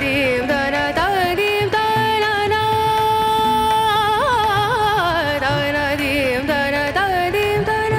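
Music: a voice singing in an Indian classical style, holding long notes and sliding and wavering between them.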